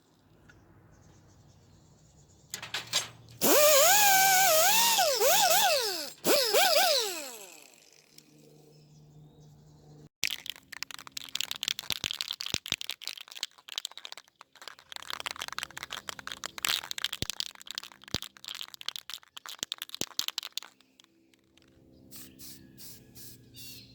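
Rust-Oleum spray paint can being shaken, its mixing ball rattling in quick clicks for about ten seconds before spraying. Before that comes a loud wavering pitched sound lasting about four seconds.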